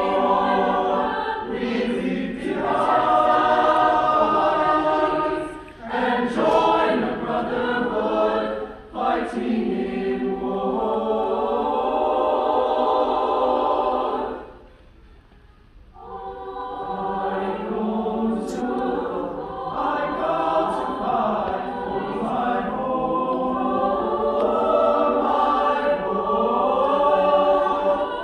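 Large mixed choir of women and men singing together in parts, stopping for about a second and a half about halfway through before coming back in.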